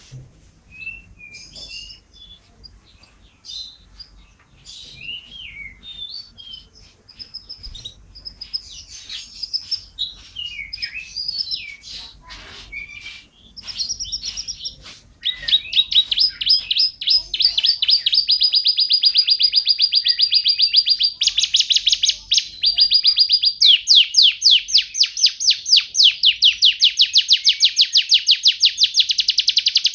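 Domestic canary singing: scattered chirps and short warbled phrases, then about halfway through a loud, fast trill of rapidly repeated notes that runs on, shifting pitch briefly a couple of times.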